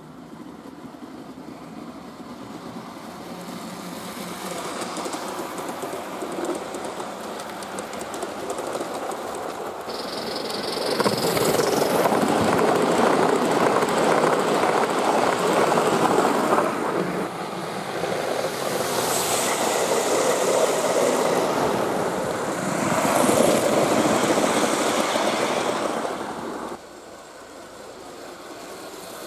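A Gauge 1 model train runs past close by, its wheels rattling and clicking along the track. The sound grows louder as it approaches and stays loud for over ten seconds as the coaches pass. Near the end it drops suddenly to a quieter, more distant train.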